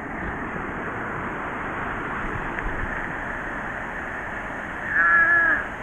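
Steady wash of ocean surf breaking on a sandy beach, mixed with wind on the microphone. A brief voice sounds about five seconds in.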